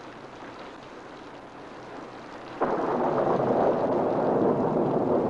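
Thunderstorm sound effect: rain hiss fades in, then about two and a half seconds in a sudden loud thunderclap breaks and carries on as a loud, steady rumble of storm noise.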